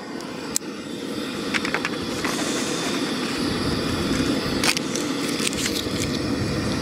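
Wind buffeting the microphone, a steady low rumble that grows louder about a second in. Over it come scattered sharp clicks and scrapes as a knife cuts open the seal of a jar of instant coffee, the loudest click near the middle.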